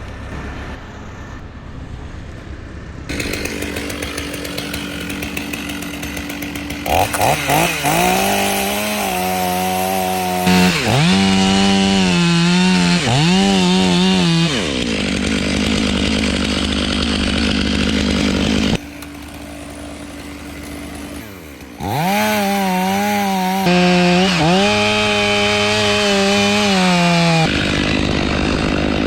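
Chainsaw cutting palm wood, its engine revving up and dropping back repeatedly as the throttle is worked, in several abruptly edited clips.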